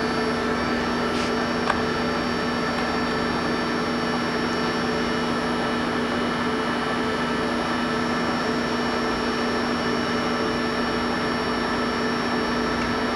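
Harrison V390 tool-room lathe, with an inverter-driven variable-speed spindle, running steadily under power cross feed: an even mechanical hum with a constant whine. A single light click comes under two seconds in.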